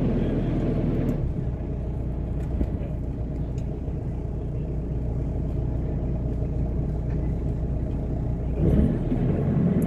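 Sailboat's inboard engine running at a steady low drone, with a brief swell of noise near the start and again near the end.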